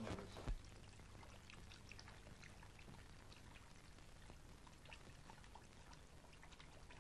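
Near silence: the faint hiss and low hum of an old film soundtrack, dotted with scattered light crackles, with a soft knock about half a second in.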